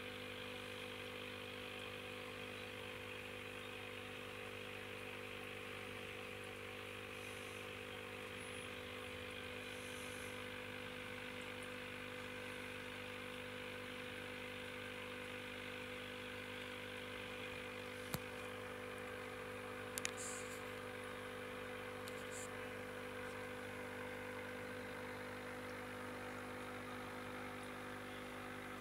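Aquarium pump humming steadily, a mains-frequency drone over a faint hiss. Two sharp clicks come past the middle, about two seconds apart.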